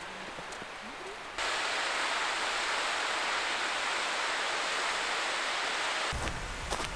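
Mountain stream rushing down a snowy gully: a steady rush of water that cuts in suddenly about a second and a half in. Near the end it gives way to footsteps.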